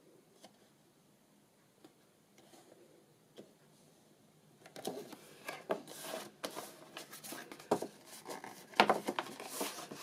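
Hands pressing and smoothing a freshly glued paper panel onto a card box, paper and card rustling and rubbing, with a few sharp clicks and knocks as the box is handled on the desk. The handling starts about halfway through; before that there are only faint ticks.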